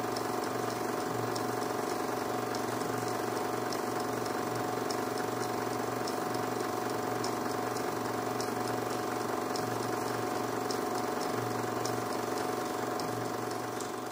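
16 mm film projector running: a steady mechanical whir and motor hum with faint regular ticking, beginning to fade out near the end.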